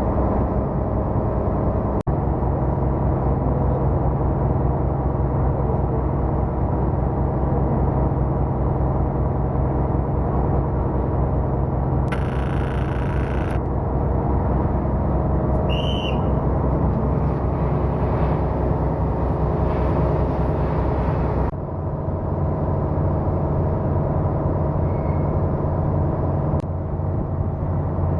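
Steady drone of a ship's diesel machinery running. A short hiss comes about twelve seconds in, a brief high whistle near sixteen seconds, and the low hum shifts in pitch about twenty-one seconds in.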